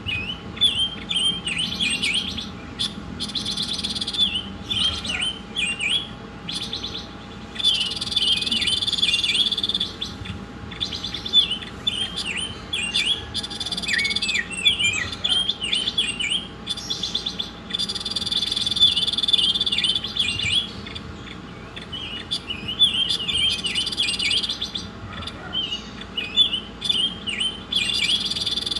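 A songbird singing a long, fast, varied song of sharp high chirps and trills, in runs of a few seconds broken by short pauses, as in an Indonesian masteran tutor recording. A faint steady hum runs underneath.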